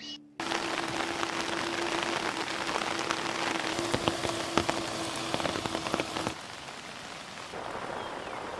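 Rain falling steadily, with many separate drops hitting close by and a steady low hum underneath. About six seconds in the hum and the louder drop hits stop, leaving softer rain.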